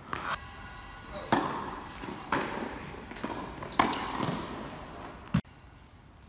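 Tennis ball being struck with racquets and bouncing on a hard indoor court during a rally: sharp pops about once a second, each echoing in the hall. The exchange stops about five seconds in.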